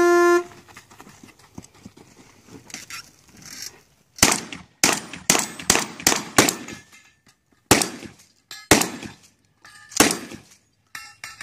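A shot timer gives one short steady beep, then after about four seconds a string of about a dozen rapid gunshots in quick groups. Thin ringing after some shots is the steel targets being hit.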